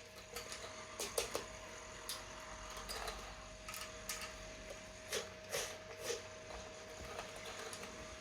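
Hands handling a toy and its plastic and cardboard packaging: scattered clicks, taps and rustles, a few louder than the rest, over a faint steady high hum.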